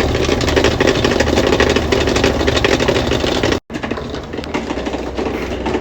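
Whirlpool washing machine running with a loud, rapid mechanical rattle from underneath the machine, the noise the customer brought it in for. The sound cuts out for an instant a little past halfway, then carries on.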